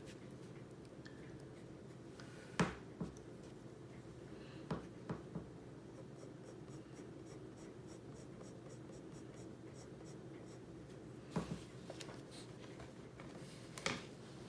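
Colored pencil held in a metal pencil extender, stroking and scratching across paper as hair is shaded, over a steady low hum. A few sharp clicks stand out, a pair about two and a half seconds in, three around five seconds and two more near the end.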